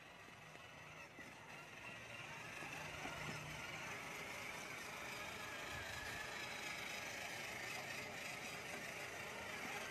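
A child's battery-powered ride-on toy car driving over concrete: its small electric motor and gearbox whir steadily, growing louder over the first couple of seconds and then holding.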